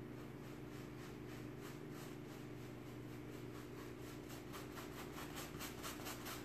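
Paintbrush scrubbing chalk-type paint into thick upholstery fabric in quick, even back-and-forth strokes, faint at first and growing louder, over a steady low hum.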